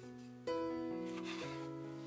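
Background instrumental music: slow, sustained notes, with a new note struck about half a second in and another about a second later.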